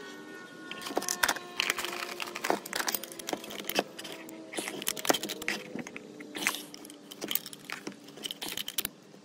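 Metal hand tools clinking and knocking on a workbench as a combination wrench is handled against a plastic blower fan: a quick, irregular run of sharp clicks and taps over a faint steady hum.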